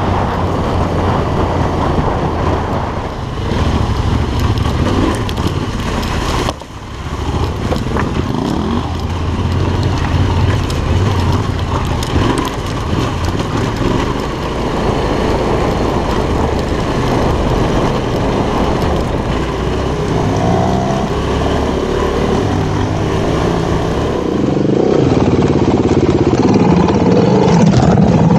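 Yamaha Ténéré 700's parallel-twin engine running as the bike rides a rough dirt track, with wind and ride noise over it. It drops out briefly about six and a half seconds in. Near the end another recording takes over, with a motorcycle engine running at a steadier pitch.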